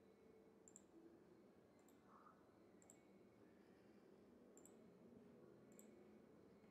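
Faint computer mouse clicks, about five of them a second or so apart, each a quick press-and-release double tick, over near-silent room tone.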